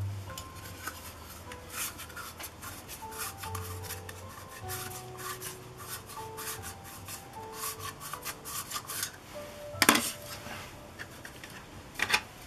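Black plastic petal lens hoods being rubbed with a cloth and handled, with scraping and light clicking as they are turned and stacked. There are two louder plastic clacks near the end.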